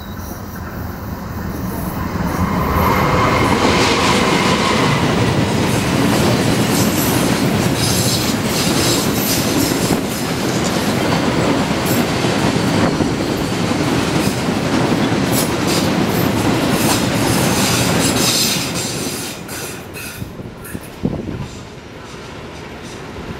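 Freight train of fuel tank wagons passing close by, its wheels clattering over the rail joints. The sound builds over the first couple of seconds, stays loud until about three-quarters of the way through, then falls away as the train moves off.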